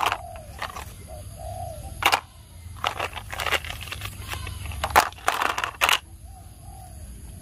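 Plastic toy train track pieces clattering and knocking against each other and against a plastic basket as they are picked up and dropped in, a series of separate knocks with the loudest cluster about five seconds in. A dove coos faintly in the background a few times.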